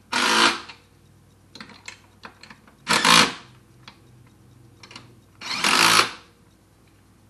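Cordless drill run in three short bursts of about half a second each, turning the drive of a power-seat track through a shaft left in it. The drill stands in for the seat's own motor, which no longer moves the seat.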